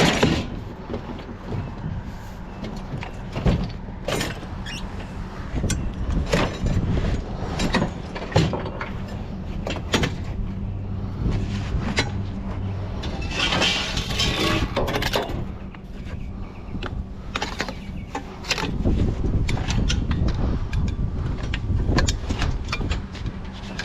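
Vehicle engine running with a steady low hum, with many irregular knocks and metallic clanks over it.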